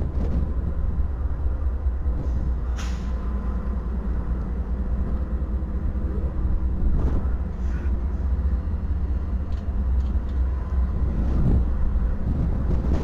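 Diesel locomotives of a BNSF train passing slowly with a steady low engine rumble, with a few short hisses about three and seven seconds in.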